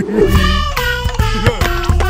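Bouncy cartoon background music with a bass beat, and a short squeaky cartoon character vocalisation near the start.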